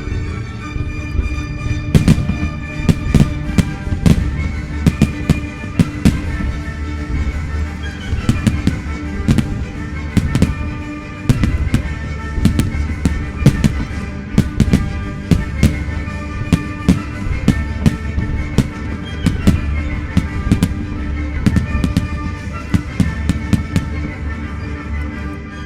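Fireworks display set to music: dozens of sharp firework bangs, some single and some in rapid clusters, start about two seconds in and go on until shortly before the end. Under them the music plays long held notes.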